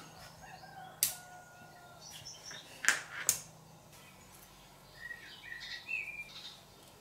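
Small neodymium bar magnets snapping together with three sharp clicks, then a soft crackling as a thin strip of wooden popsicle stick is peeled off along the grain.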